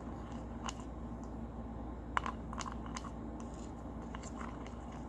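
Slime being stirred with a utensil in a bowl as activator is mixed into the glue: irregular small clicks and scrapes of the utensil against the bowl, more frequent from about two seconds in.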